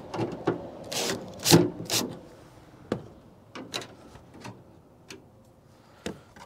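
Knocks, rubs and light clicks from a hood bug deflector and its mounting hardware being handled and fitted. A quick run of knocks comes between about one and two seconds in, followed by scattered single clicks.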